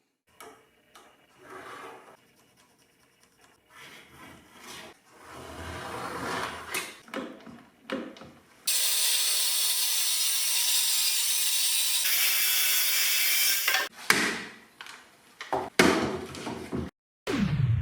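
Plywood sheet being handled and scraped on the bench, then a power saw cutting through the plywood for about five seconds, starting suddenly about halfway through, followed by a few more knocks of the boards being handled.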